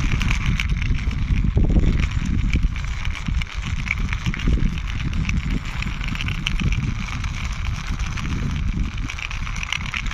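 Toy truck pushed along by hand, its plastic wheels rolling with a continuous rattle of fine clicks over a steady low rumble.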